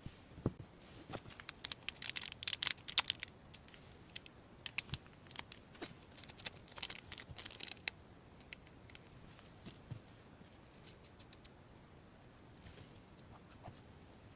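Small plastic Re-ment miniature toy pieces being handled and set down: quick clusters of light clicks and taps with a little crinkling, busiest early and midway, then only a few scattered clicks.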